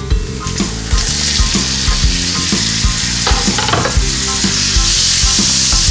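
Thawed sliced champignon mushrooms tipped into a hot frying pan of onions in olive oil and stirred, setting off a loud sizzle. The sizzling hiss starts about a second in and grows stronger as the mushrooms' water begins to fry off.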